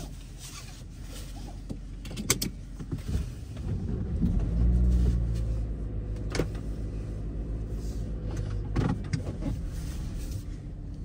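Car engine starting about four seconds in, rising briefly and then settling into a steady idle, heard from inside the car. A few sharp clicks come before the start and twice during the idle.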